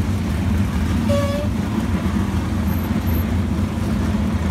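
Engines of several winged 410 sprint cars running at low revs as the cars roll past, a steady deep rumble. A short high tone cuts through about a second in.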